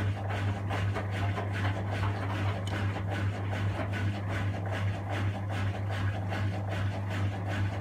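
Miele front-loading washing machine turning its drum slowly with a steady motor hum and a regular swishing pulse about three times a second. The drum is tumbling an off-balance load at low speed to spread it out, a third balance attempt before the spin.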